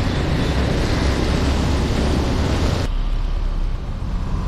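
Wind rush and road noise on a riding motorcycle's camera microphone, a dense hiss over a heavy low rumble. About three seconds in the high hiss drops away abruptly, leaving mostly the low rumble.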